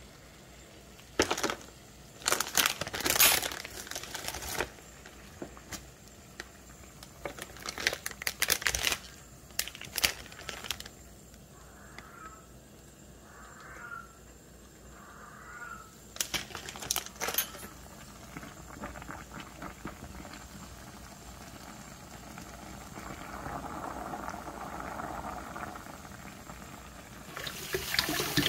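Plastic instant-noodle packet crinkling and rustling in the hand in several bursts, with a cat meowing faintly in the distance three times about halfway through. Near the end a kitchen tap starts running water onto cooked noodles in a mesh strainer.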